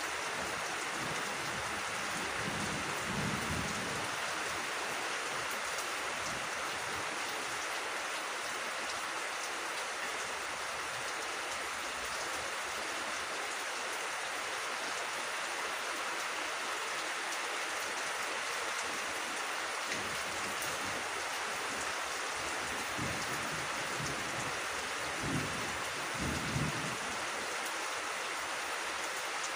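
Steady rain falling on leaves and grass, an even hiss throughout, with brief low rumbles about three seconds in and again near the end.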